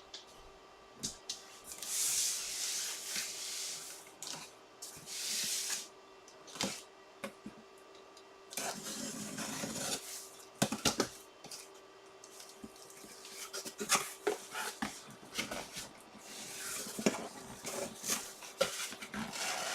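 Packaging being handled and opened by hand: bursts of rustling and scraping, with scattered clicks and taps, over a faint steady hum.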